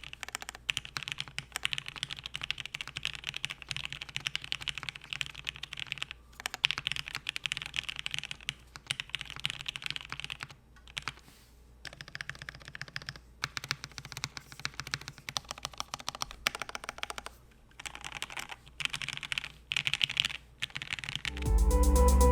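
Cannon Keys Savage65 mechanical keyboard being typed on: lubed H1 linear switches in an FR4 half plate under PBT keycaps, in steady runs of keystrokes with a few short pauses. Near the end, music with a heavy bass line comes in.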